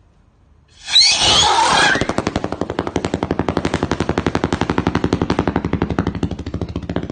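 Strobe rocket firework: a sudden loud hissing rush about a second in, then a rapid, even train of sharp pops, roughly a dozen a second, as the strobe flashes. The pops fade out near the end.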